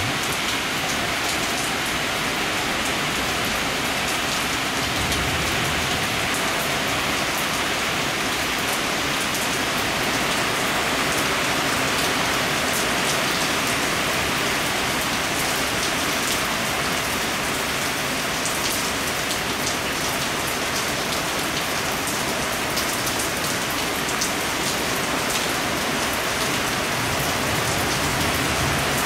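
Steady thunderstorm downpour: an even hiss of rain with scattered sharper drop ticks.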